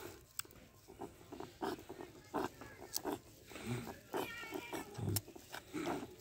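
Newborn puppies whimpering and squeaking in many short cries while nursing at a mother dog's teats.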